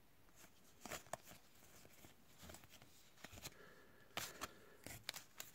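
Near silence, broken by a few faint, short clicks and slides of trading cards being flipped through by hand, about a second in and again twice near the end.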